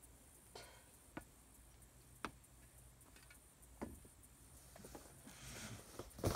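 A few faint, scattered clicks and taps, a soft rustle near the end, then a loud bump right at the close.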